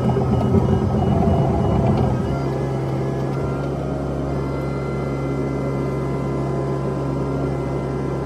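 Komatsu PC128 excavator heard from inside the cab, its engine and hydraulics running. The sound is louder and busier for about the first two seconds while the boom and bucket move, then settles to a steady drone.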